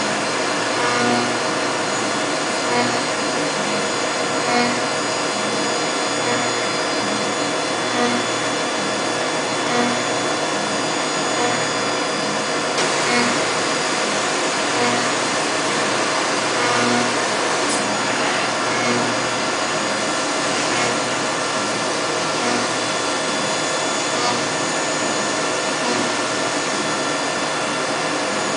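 5-axis CNC milling machine cutting an aluminium sump from a billet under flood coolant: steady spindle and cutting noise with coolant spray hiss and a few steady tones. The cut swells about every two seconds as the cutter passes, the hiss brightens about halfway through, and there is one sharp click a little past the middle.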